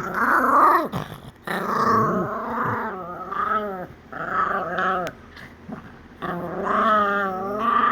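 A dog growling and grumbling in long drawn-out vocal stretches, about five in a row with short breaks, the pitch bending up and down.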